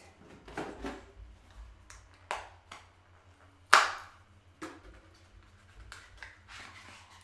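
Hands opening a small product box: scattered short rustles and taps, with one sharp, loud crack about three and a half seconds in.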